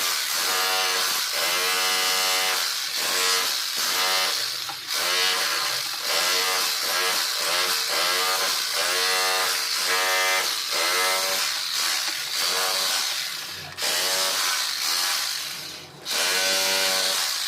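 Electric drill boring a hole for a pipe fitting. The motor whine sweeps up in pitch again and again, about once a second, as the bit loads and frees, and it drops out briefly twice near the end.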